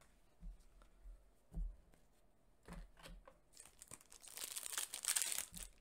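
A few soft thumps, then a foil trading-card booster pack wrapper crinkling and tearing as it is opened by hand, the crinkling loudest in the second half.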